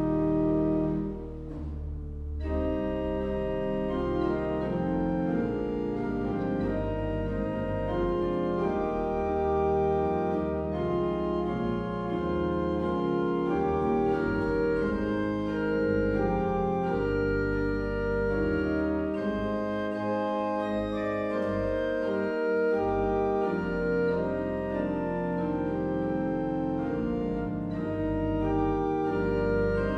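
Organ music: sustained, many-voiced chords moving slowly from one to the next, with a short dip in loudness about a second in.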